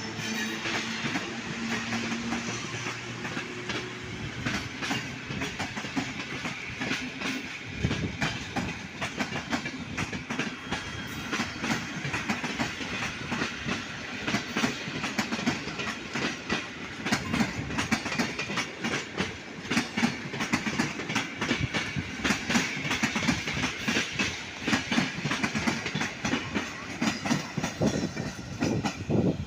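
A train running past on the track, its wheels clattering over rail joints and points over a steady rumble. A low hum fades in the first couple of seconds, and the clacking grows denser from about eight seconds in.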